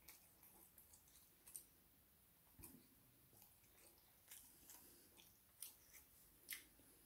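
Faint chewing of fried samosa or onion bhaji: irregular soft crunches and mouth clicks, a handful of them sharper than the rest.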